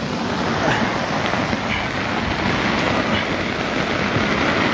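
Steady, even rush of water from heavy rain and brown floodwater running across the road.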